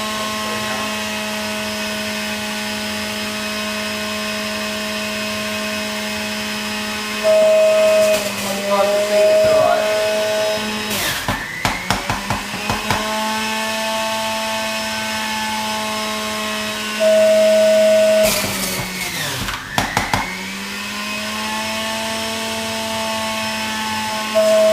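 Electric juicer motor running with a steady high-speed hum. Three times it grows louder as produce is pushed through. Twice the motor's pitch sags under the load, with a few knocks, then winds back up to speed.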